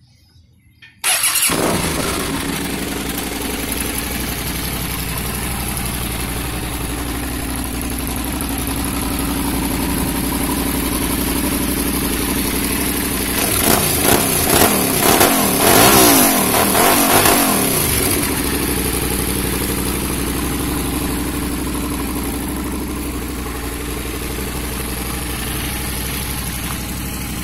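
Suzuki SV650's 90-degree V-twin starting about a second in and idling through a custom GP-style exhaust. Several quick throttle blips come a little past halfway, and then it settles back to a steady idle.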